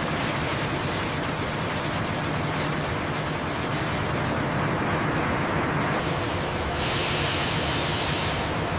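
Steady sawmill machinery noise, a dense rumble and hiss, with a brighter hiss added from about seven seconds in until shortly before the end.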